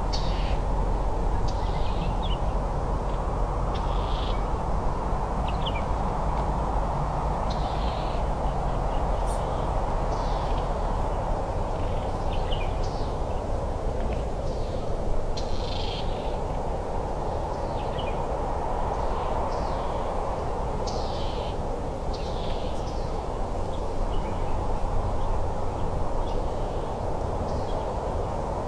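Woodland ambience of wild birds giving short, high, falling chirps every second or two over a steady rushing background that slowly swells and fades, with a low rumble beneath.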